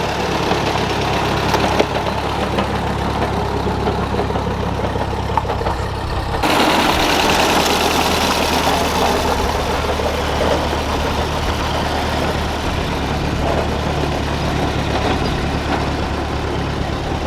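Ford 8N tractor's four-cylinder flathead engine running steadily, its sound changing abruptly about six seconds in.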